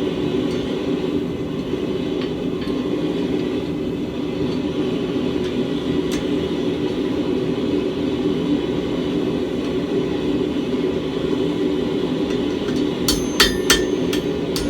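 A steady low rumble, then near the end a quick run of about four hammer blows on hot steel at the anvil, each with a bright ring, as the second hook of an S-hook is forged.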